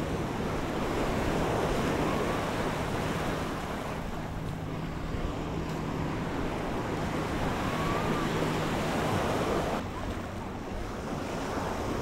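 Small waves washing up on a sandy shore, a continuous surf wash that swells and eases, with some wind on the microphone.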